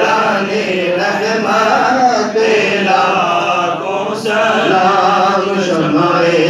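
A man chanting a devotional salaam in Urdu-style recitation into a handheld microphone, singing long drawn-out phrases that rise and fall in pitch.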